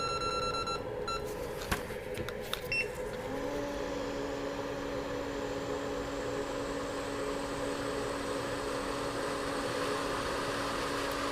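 Hot air rework station set to 360 °C and airflow 40: an electronic tone stops about a second in, a few clicks and short beeps follow, then from about three seconds in its fan blows a steady hiss with a constant hum, reflowing a BGA controller chip onto the board.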